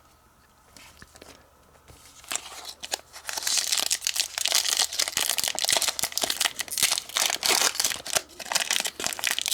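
Crinkly foil booster-pack wrapper being handled and torn, a dense crackle of quick clicks that starts about two seconds in and grows busy and loud.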